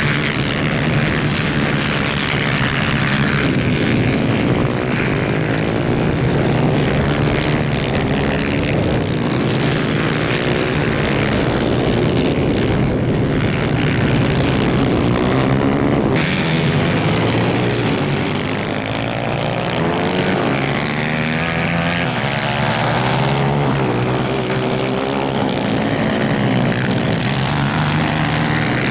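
Several 250cc superkarts racing together, their engines overlapping and constantly rising and falling in pitch as the drivers rev and lift.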